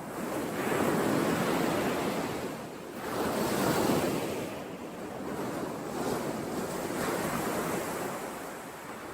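Ocean waves breaking on a shore, the surf swelling and ebbing in successive washes, the two strongest about a second in and around four seconds in, with wind.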